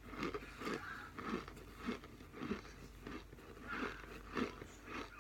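A person chewing crunchy chunks of cornstarch, a regular rhythm of crunches a little under two a second.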